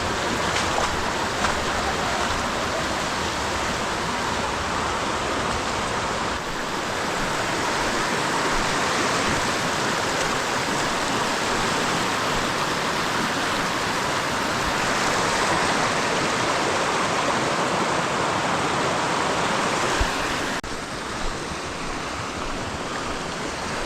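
Waterfall: a steady rush of falling water, with the sound shifting abruptly about six seconds in and again near 21 seconds.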